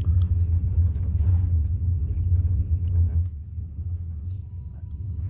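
Train running: a steady low rumble that drops somewhat about three seconds in.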